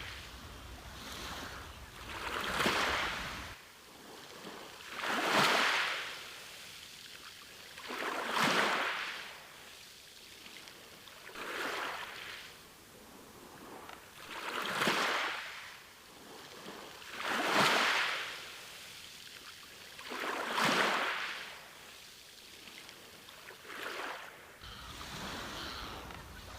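Ocean waves breaking and washing onto a beach, each swell of surf rising and falling away about every three seconds.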